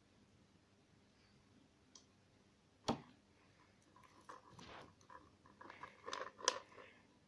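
Runny slime being poured and handled, making quiet sticky squelching and crackling sounds, with a sharp click about three seconds in.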